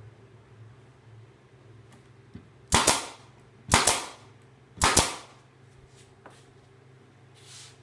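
Pneumatic brad nailer firing three nails about a second apart, each shot a sharp double crack, driving brads into pine boards. A faint short hiss of air follows near the end.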